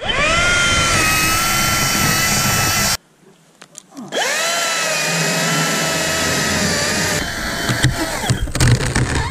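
Chainsaw run at full throttle, rising quickly to a steady high pitch. It cuts off abruptly about three seconds in, comes back a second later with the same quick rise, and holds again with some knocking near the end.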